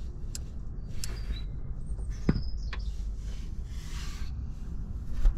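Rubbing and scraping noise on the microphone as the camera is handled, over a steady low rumble, with scattered clicks and a short squeak that drops steeply in pitch about two seconds in.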